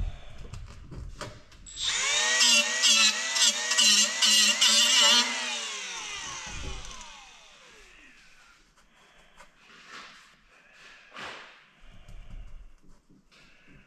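Small die grinder starting up about two seconds in and cutting into fiberglass for about three seconds, its whine wavering and dipping under load, then winding down with a falling pitch. The small grinder is underpowered for the job. A few faint knocks follow.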